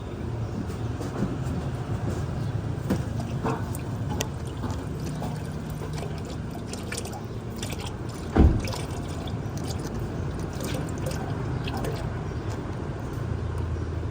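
Motor oil pouring in a steady stream, with scattered small clicks and one loud knock about eight seconds in.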